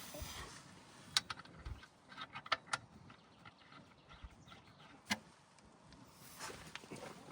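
A few separate sharp clicks and taps, with faint handling noise between them: tools and parts being handled at the front differential's fill hole after filling.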